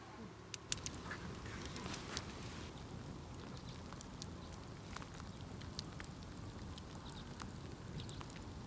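Wood campfire crackling, with irregular sharp pops and snaps over a steady low background.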